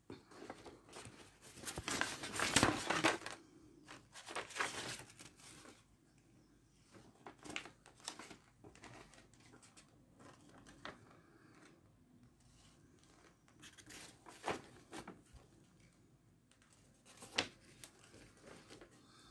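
Close, scratchy rustling and rubbing handling noise, loudest over the first few seconds, then scattered softer rustles with a couple of sharp clicks later on.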